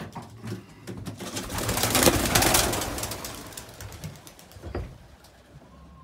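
Racing pigeons' wings flapping as they take off out of the loft, a rustling clatter that swells to its loudest about two seconds in and then fades. A short soft knock comes just before the end.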